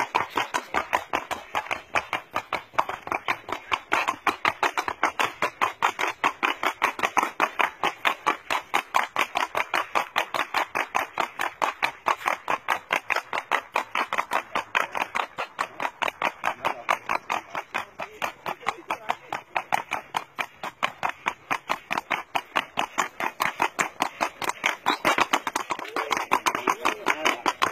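A horse's hooves clattering on asphalt in a rapid, even beat of about four strikes a second, the quick footfalls of a horse stepping along a paved road.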